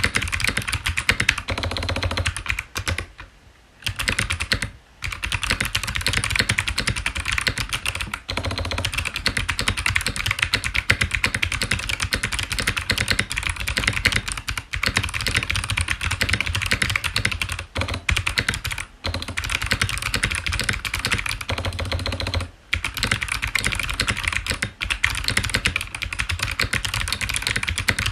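Fast continuous typing on a mechanical keyboard with Kailh Box Jade clicky switches in a Tofu65 aluminium case: crisp, loud clicks from each keystroke, with a few brief pauses.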